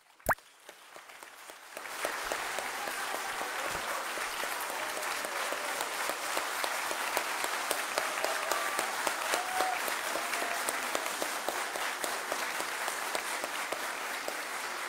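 A large crowd applauding: many hands clapping together in a dense, steady ovation that swells up about two seconds in. It is preceded by one sharp knock at the very start.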